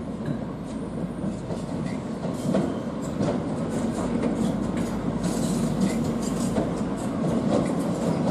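Slow-moving diesel-hauled test train approaching: a steady low rumble from the Class 37 locomotive's diesel engine and the rolling stock, with wheels clicking over rail joints, slowly growing louder.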